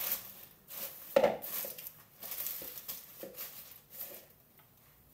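Paper being crumpled and spread out by hand, rustling and crinkling in several short bursts, with a sharper knock about a second in.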